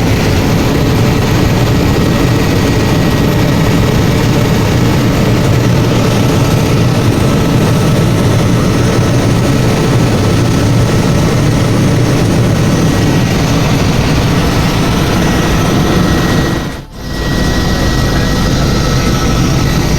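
Steady, loud helicopter engine and rotor noise, with a brief drop about three-quarters of the way through where the sound cuts.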